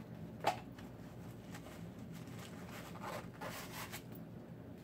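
Tissue paper and shoe packaging rustling and rubbing as a boot is lifted out and unwrapped. There is one sharp tap about half a second in, and a cluster of rustles near the end.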